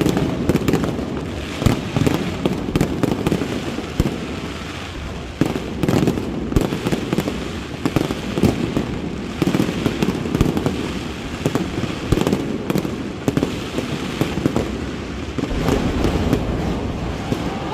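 Fireworks display: a steady stream of irregular bangs and crackles over a continuous rumble.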